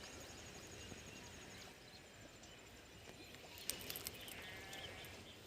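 Quiet outdoor ambience: a faint, high, rapid ticking trill comes and goes, with a few light clicks and a short call about four seconds in.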